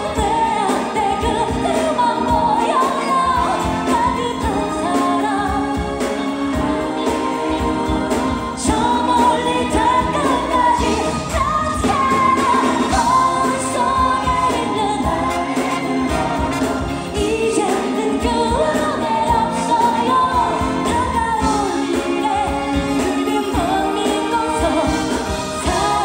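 Female K-pop singer singing live into a handheld microphone over full band accompaniment with a steady beat.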